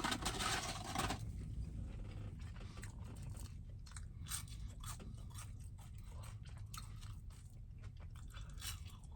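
Close-up chewing and crunching of a fried chicken sandwich, with irregular small crunchy clicks of mouth and food. A short rush of noise comes in the first second before the chewing settles in.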